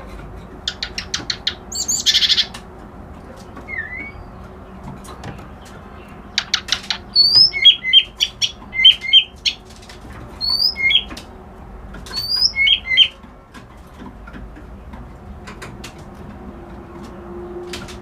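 Kerak basi alis putih, a reed warbler, singing in short separated phrases: fast rattling runs of harsh clicky notes and a buzzy note, then a string of short, sharp slurred whistles. The last few seconds are a pause in the song.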